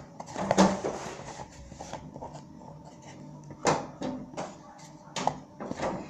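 Spoon stirring and scraping glue in a small container, with a few irregular knocks against its sides.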